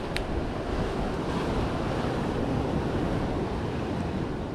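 Sea surf washing against the boulders of a rock jetty, a steady rushing that swells slightly midway, mixed with wind buffeting the microphone. A single sharp click sounds just after the start.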